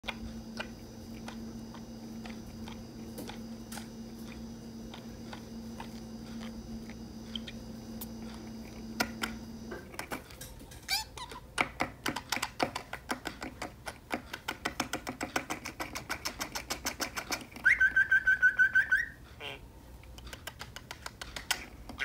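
Pet budgerigar chattering: first a steady hum with faint ticks, then a quickening run of rapid clicks and soft chirps, about five a second. Near the end comes a loud, fast trill lasting about a second.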